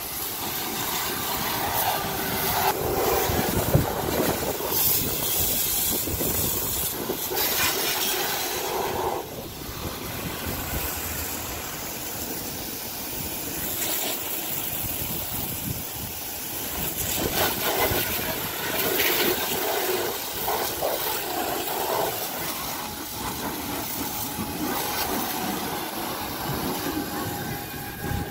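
Water jetting from a hose onto a car's body and windscreen, a hissing, splashing spray that swells and fades as the stream moves over the panels.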